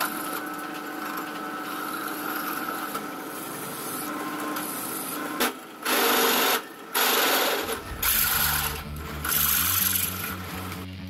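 Drill press running with a steady motor whine while a twist drill bores into a metal tube held in a machine vise. About halfway through, the cutting grows louder in about five short spells as the bit is fed in.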